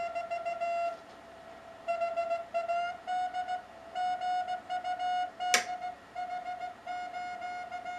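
Morse code (CW) signal received on a Yaesu FT-200 and played through an MFJ-781 DSP filter set to its narrowest 150 Hz CW bandwidth: a clean, steady beep keyed on and off in dots and dashes over only faint hiss, the note creeping slightly higher partway through. A single sharp click about five and a half seconds in.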